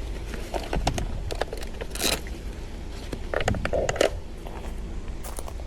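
Hands working with bike gear and cables: irregular rustles, clicks and scrapes, with a louder rustling burst about two seconds in and another near four seconds, over a steady low rumble.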